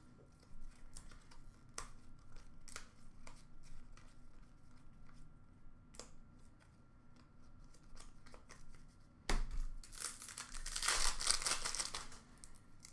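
Trading cards handled and flicked through with light scattered clicks; about nine seconds in, a foil card-pack wrapper is torn open and crinkled for a few seconds.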